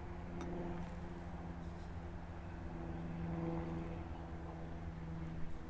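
Steady low hum of a bass boat's electric trolling motor running at a constant speed, with a faint click about half a second in.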